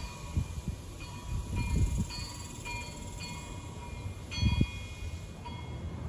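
Wind gusting against the microphone, with strong buffets about two seconds in and again past four seconds. Over the wind, wind chimes ring lightly, one clear note after another at several pitches.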